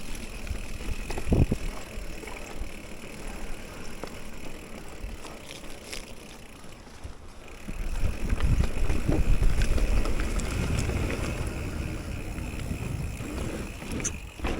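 Mountain bike being ridden on a wet dirt trail: tyre and trail noise with small scattered clicks and rattles. Heavy wind rumble on the microphone from about eight seconds in.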